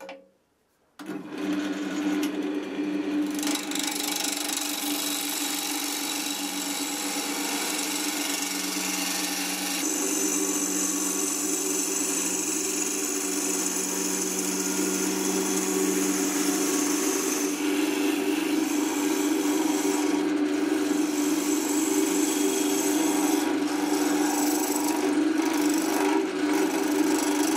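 Wood lathe starting up about a second in, just after a short knock, then running steadily with a hum from its motor while a gouge cuts the spinning ash blank, a continuous rush of shavings coming off the wood.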